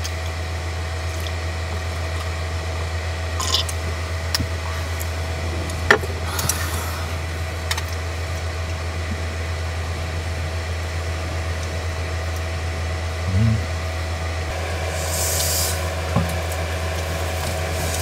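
A bottle of makgeolli being opened: short hisses of gas escaping from the cap, three times, the last one longest and loudest, with small clicks and knocks of handling, over a steady low hum.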